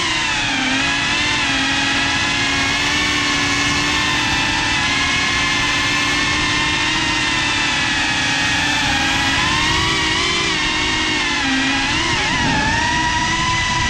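Brushless motors and ducted 3.5-inch propellers of a GEPRC CineLog35 FPV cinewhoop drone, heard through its on-board GoPro: a loud buzzing whine over propeller hiss. Its pitch dips and rises with the throttle, wavering about twelve seconds in and climbing near the end.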